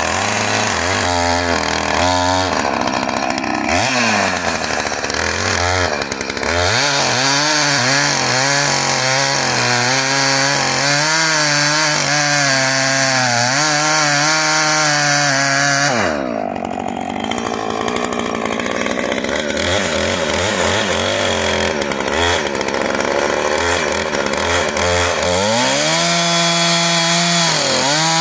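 Husqvarna two-stroke chainsaw running at high throttle as it cuts into oak. Its engine pitch sags and recovers several times, dips longest around sixteen seconds in, and near the end climbs back to a steady high pitch.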